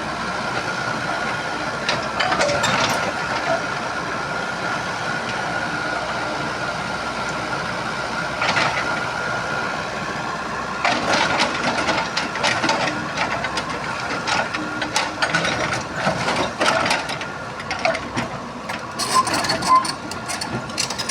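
Excavator working: its engine runs steadily with a constant high whine, and irregular metallic clanks and knocks come thick and fast over the second half.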